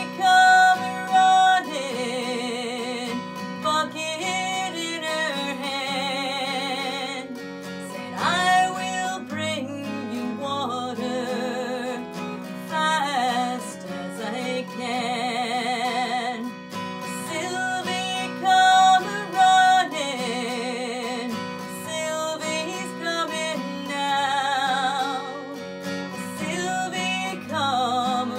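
A woman singing a traditional folk song, holding long notes with vibrato, while accompanying herself on a strummed acoustic guitar.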